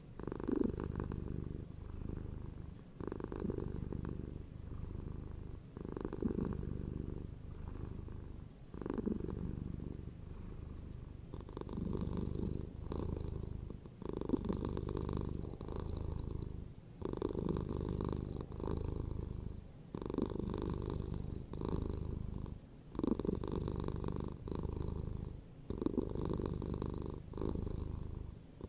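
Domestic cat purring steadily, the purr swelling and easing in a regular cycle about every three seconds as the cat breathes in and out.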